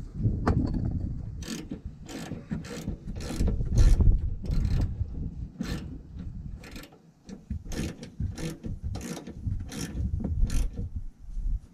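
Socket ratchet wrench clicking in short, irregular strokes as a bolt under the car is worked, with low knocks and rubbing from the hand and tool against the car's underside.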